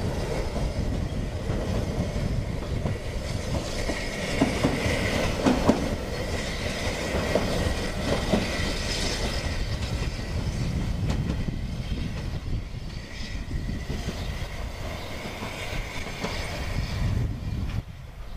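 Ffestiniog Railway narrow-gauge steam train pulling away: the coaches rumble steadily and knock over rail joints, and a thin high wheel squeal joins about four seconds in and fades near the end.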